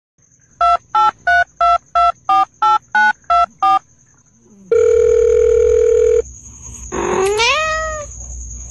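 Ten telephone keypad touch-tones in quick succession, about three a second, each a short two-note beep. A single steady beep follows for about a second and a half, then a cat gives one rising meow.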